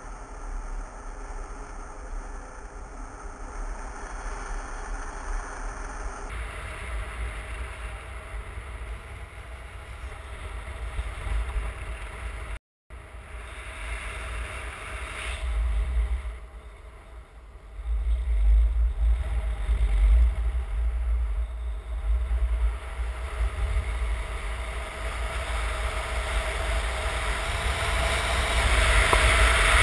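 Wind rushing over the microphone of a camera on a paraglider in flight: a steady low buffeting rumble with hiss above it, breaking off for a moment near the middle and growing louder near the end.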